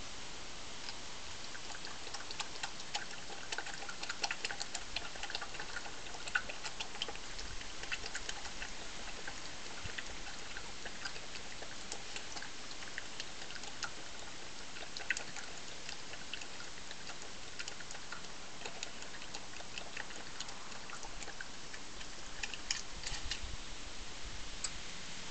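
A badger eating: irregular small clicks and crunches of chewing and mouthing food, over a steady hiss. The clicks come thickest over the first few seconds and again in a short flurry near the end.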